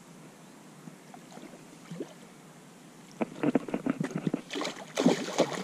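Water splashing in a quick, irregular run of splashes that starts about three seconds in and is loudest near the end, as a hooked carp thrashes at the surface while it is brought to the landing net.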